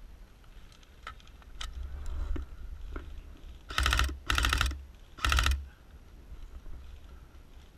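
Airsoft gun firing three short full-auto bursts of rapid, evenly spaced clicks, each about half a second long, a little past the middle. A few single clicks or snaps come before them.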